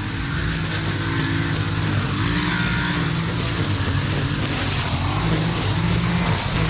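Gas string trimmer running and cutting tall grass, its small engine's pitch dipping and rising as the throttle is worked, over a steady hiss of line whipping through grass.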